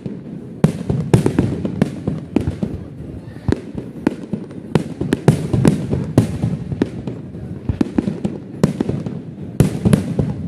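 Fireworks display: aerial shells bursting in quick, irregular succession, a string of sharp bangs.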